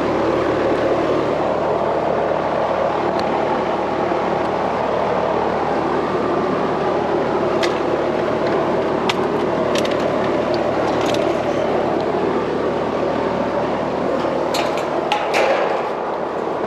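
Steady machine drone with a low hum, with a few sharp clicks and ticks in its second half.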